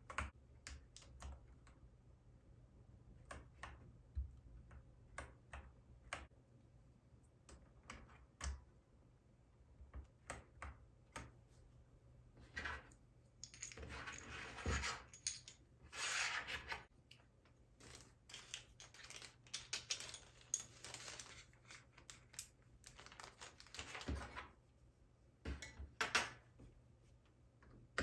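Keychron K10 Pro mechanical keyboard being typed on. Scattered single key presses come first, then runs of fast typing in the second half.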